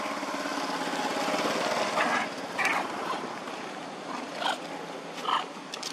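Mountain bike wheels rolling over gravel, a fast steady rattle, with a few short sharper knocks and squeaks between about two and five and a half seconds in.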